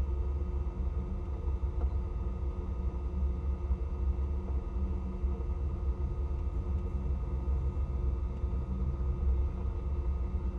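Rally car's engine idling steadily, a low rumble heard from inside the cabin while the car waits stationary.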